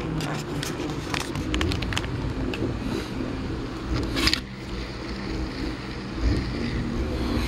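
Hoverboard hub-motor wheel spinning freely: a steady low hum with scattered light clicks, and a brief louder rasp about four seconds in.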